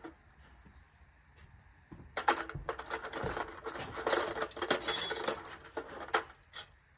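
Loose metal sockets clinking and rattling against each other as someone rummages through them, in a dense run of clinks from about two seconds in until near the end.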